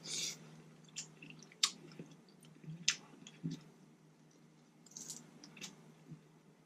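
Close-miked mukbang eating sounds: soft chewing with wet smacks and a scattered series of small sharp clicks and crackles, from eating saucy leftover seafood.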